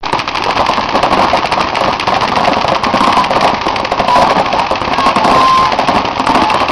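Many paintball markers firing at once, a dense, continuous crackle of rapid overlapping shots.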